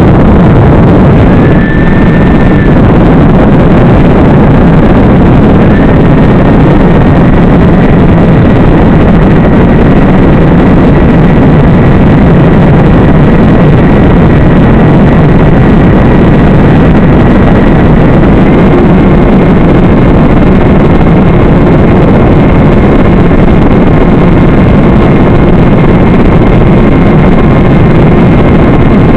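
Loud, unchanging rushing noise carried on an analog FPV video link's audio, with a faint thin whine above it that steps up in pitch a couple of times.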